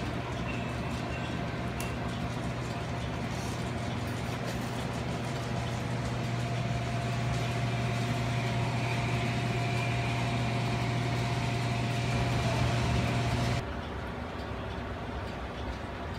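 Model trains running on a large garden railroad layout: a steady low hum with a faint whine above it, growing a little louder over the middle, then cutting off suddenly near the end to a softer background.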